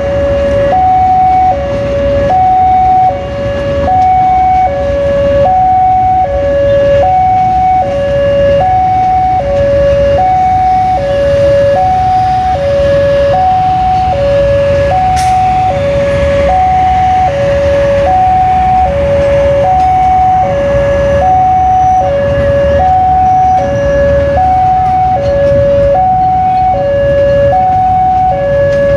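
Electronic level-crossing warning alarm sounding continuously, alternating between a higher and a lower tone, each held just under a second. It sounds over the low, steady rumble of passenger carriages rolling across the crossing.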